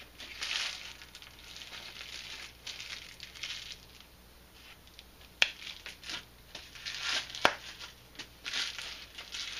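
Bubble wrap and cardboard packaging crinkling and rustling as it is pulled off a framed plaque, with two sharp clicks about two seconds apart midway.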